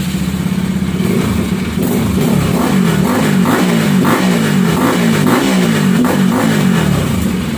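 RS200 motorcycle engine running through an Akrapovič-style aftermarket muffler with its silencer insert fitted. It idles, is blipped repeatedly in quick succession from about two seconds in, then settles back to idle near the end.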